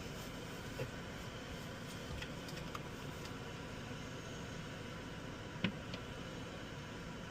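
Steady running hum of a car and its heater fan, with a few light clicks; the sharpest comes about five and a half seconds in.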